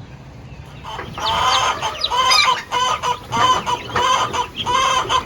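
A flock of young turkeys calling excitedly at feeding time, with many short pitched calls overlapping. The calls start about a second in.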